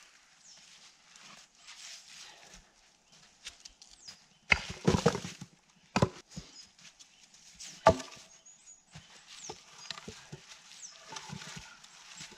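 Wooden logs knocking and thudding against each other as they are pulled out of a stacked log wall and dropped. There is a quick cluster of knocks about four and a half seconds in, and single heavier knocks about six and eight seconds in, with scuffing and crunching in snow between them.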